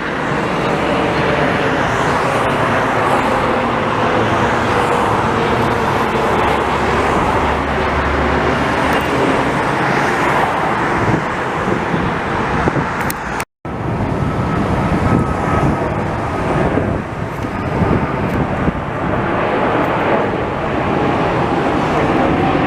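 Steady loud roar of a jet airliner's engines with a faint falling whine, cut off by a brief dropout about halfway through and then carrying on.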